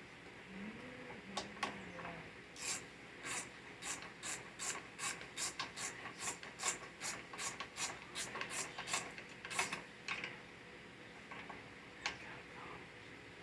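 A hand tool worked in about twenty quick rasping strokes, roughly three a second, stopping about ten seconds in, with a few single clicks before and after.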